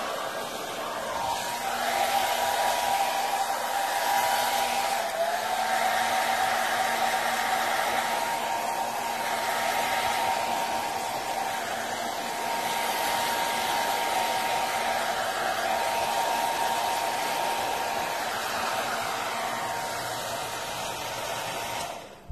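Handheld hair dryer blowing steadily, a faint whine in its noise dipping slightly in pitch about five seconds in, then switched off abruptly near the end.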